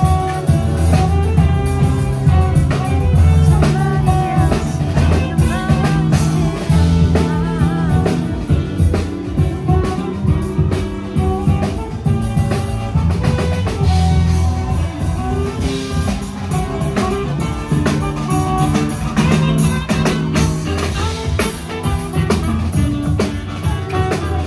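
Live street band playing, with drum kit and guitar in a bluesy tune.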